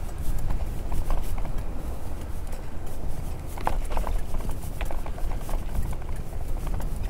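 A bicycle rattling and clicking unevenly as it rolls over asphalt, with wind buffeting the microphone as a low rumble.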